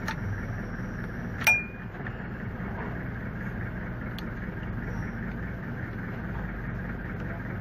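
A single sharp metallic clink with a brief ring about a second and a half in, from the steel socket and extension bar on the camshaft timing pulley bolt, over a steady low background hum.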